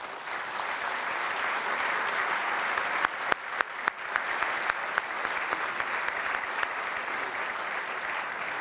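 An audience applauding: steady clapping that starts at once, with a few single sharper claps standing out in the middle.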